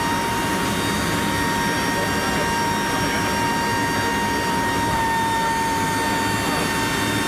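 Steady drone of a Lockheed C-130 Hercules's four turboprop engines heard inside the cargo hold: a deep, even rumble with a steady high turbine whine over it.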